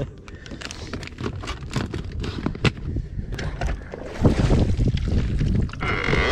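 Light clicks and crinkling from a plastic bait bag being handled, then from about four seconds in, wind buffeting the microphone with a loud low rumble on the open boat deck.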